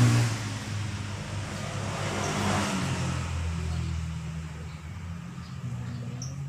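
A motor vehicle engine running with a steady low hum that gradually fades.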